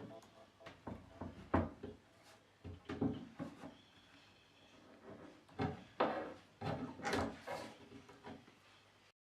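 Irregular wooden knocks and short scrapes, like wooden furniture parts being handled and moved, with several sharper knocks scattered through; cuts off suddenly near the end.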